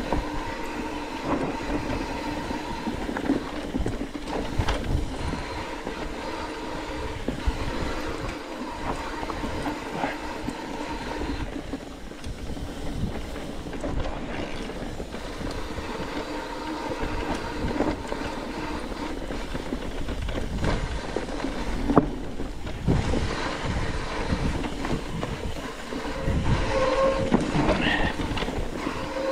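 Mountain bike coasting down a dirt singletrack: the rear freehub's steady buzzing whir, with rattles and knocks as the bike runs over bumps and roots, and low wind rumble on the microphone.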